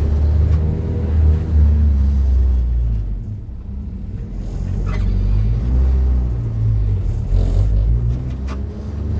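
Honda Civic's engine running while driving, a steady low rumble whose pitch rises and falls with the revs, with a lull about three seconds in.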